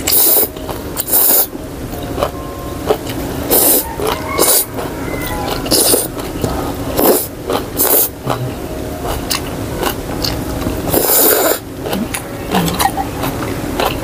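Close-miked slurping of rice noodles from bún bò soup: repeated short slurps with chewing between them.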